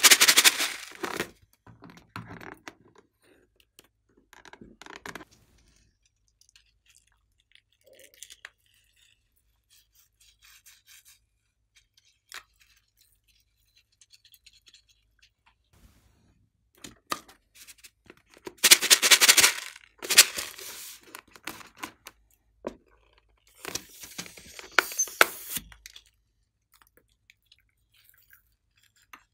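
Hands working slime-filled rubber balloons and slime: bursts of crackling, rubbing handling noise, with the loudest about two-thirds of the way in and quiet stretches between.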